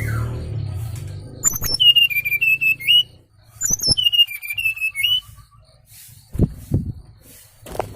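Bird lure call for trapping the SRDC bird: two matching whistled phrases, each a high falling note followed by a quick run of wavering notes, with a pause between. A few soft low knocks near the end.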